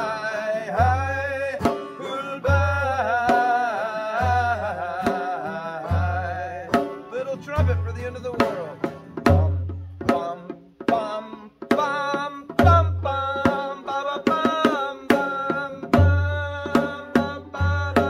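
Live acoustic folk music: a Korean barrel drum (buk) beats deep thumps about every second and a half under acoustic guitar, banjo and a wavering melody line. The drum drops out for a couple of seconds just after the middle and comes in quicker near the end.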